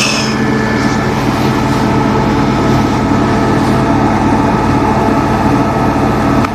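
Hotpoint First Edition WMA 9 washing machine's replacement motor driving the drum steadily at speed, a loud, even hum of several steady tones, in the last minute of its programme.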